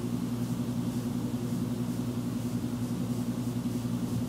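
Steady low hum with several held pitches and a faint hiss underneath, background machine noise picked up by a laptop's built-in microphone array.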